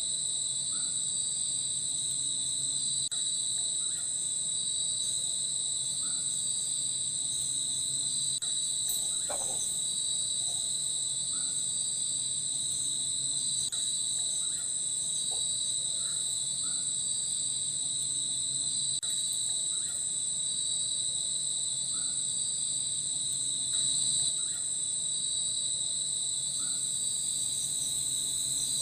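Night insects, crickets among them, calling in a steady high-pitched chorus with a faint pulsing beat inside it, and faint short chirps every second or two.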